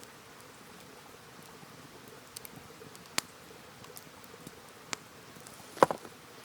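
Wood fire crackling: a few sharp, separate pops over a faint steady hiss, the loudest a quick cluster near the end.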